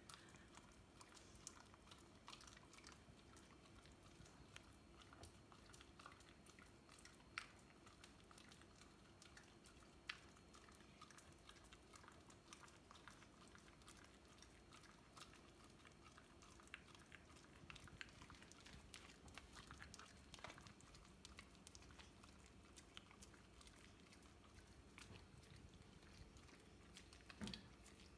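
A whippet faintly chewing and licking sticky peanut butter: irregular wet mouth clicks and smacks, with a few sharper ones.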